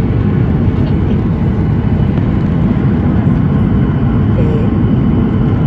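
Steady low cabin roar of a Boeing 737-800 on its arrival approach, its CFM56 jet engines and the airflow over the fuselage heard from inside the passenger cabin.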